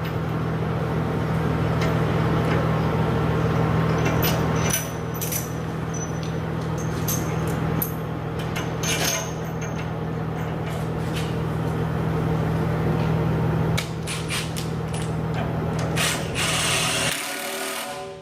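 Metal clinks and taps of hand tools and parts while a new bit is fitted to a forestry mulcher's cutting head, over a steady machine hum. Near the end there is a short hiss, and the hum cuts off suddenly.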